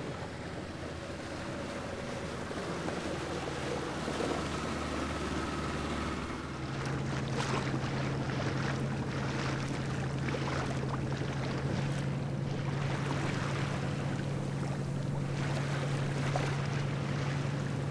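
A boat engine's steady drone under water sloshing and wind on the microphone; the drone steps up in pitch and strength about six seconds in.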